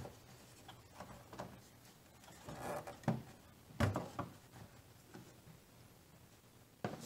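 Plastic dust cover on the back of a 5th-gen Toyota 4Runner's headlight housing being twisted off by hand: faint scattered plastic clicks and knocks with some rustling, the loudest knock about four seconds in.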